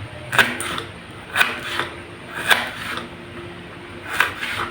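Kitchen knife slicing through shallots onto a cutting board: about eight sharp knocks, loosely paired, roughly once a second.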